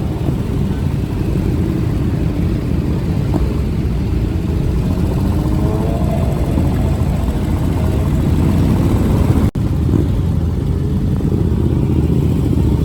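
Motorcycle engines running at low speed in a dense group, with a rise and fall in pitch around the middle as an engine revs. The sound drops out for an instant about two-thirds of the way through.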